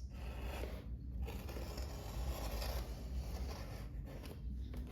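A cardboard shipping box being opened by hand: packaging scrapes and rustles in uneven strokes, with brief pauses about a second in and near the end.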